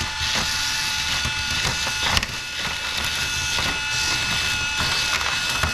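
Hexbug mini battle bots fighting: their small electric motors whine steadily while the plastic bots rattle and clatter against each other and the arena, with one sharper knock about two seconds in.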